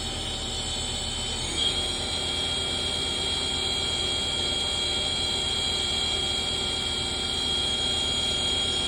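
Haas SL-30 CNC lathe spindle running, a steady machine hum with a high whine that steps up about a second and a half in and then holds steady. The machine is cold, just switched on with no warm-up.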